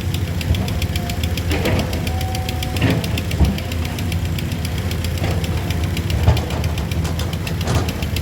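Vehicle engine running steadily, with a rapid, even knocking clatter.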